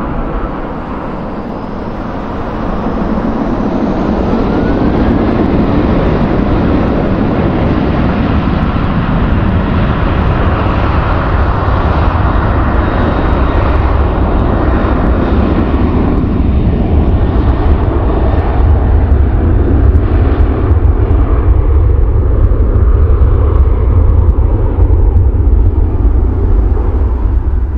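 Jet airliner engines running loud, a steady noise with a deep rumble that builds and is loudest in the second half.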